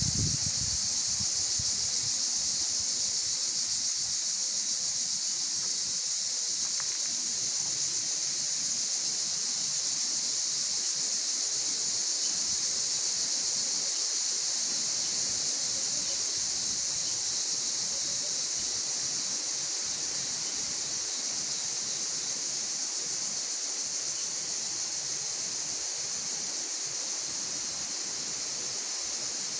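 Steady high-pitched hiss that holds level and does not change throughout.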